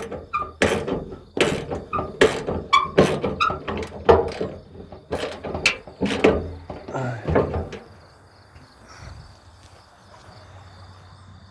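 Irregular knocks and clunks on the sheet-metal front fender of a 1988 Ford F-150 as it is worked into alignment against the door, some with a brief metallic ring; they stop about eight seconds in.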